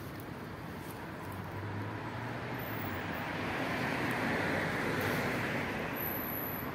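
Steady rush of distant road traffic that swells for a couple of seconds in the middle as a vehicle passes.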